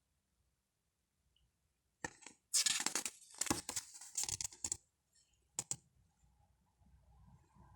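Packaging being handled and torn open: about three seconds of loud crackling and tearing, then a short sharp click.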